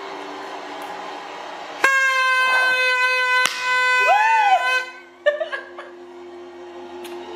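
Paper party horns (New Year's noisemakers) being blown: a sudden, loud, steady buzzing blare starting about two seconds in and lasting about three seconds, cut off abruptly.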